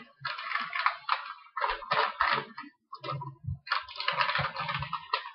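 Kitchen clean-up handling noise: several irregular rustling, scraping bursts with short gaps between them.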